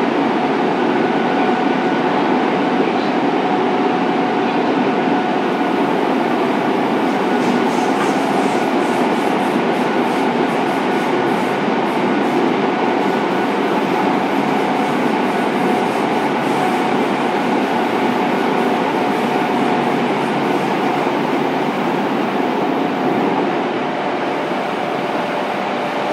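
Running noise of a Fukuoka City Subway 2000 series train with Hitachi GTO inverter drive, heard from inside the car. A steady rumble of wheels on rail carries faint steady whining tones at an even speed, with light rapid clicking from the track.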